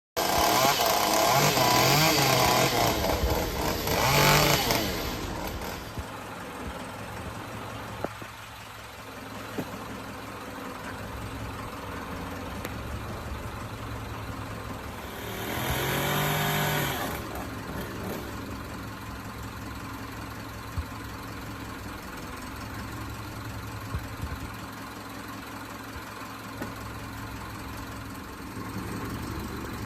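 Vehicle engine idling steadily. A vehicle passes loudly in the first few seconds and again about sixteen seconds in.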